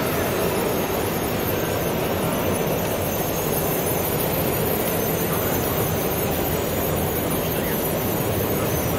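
Scale model silo plant's conveyor belt running while gravel pours off it into the metal tipper bed of an RC dump truck, over a steady exhibition-hall din.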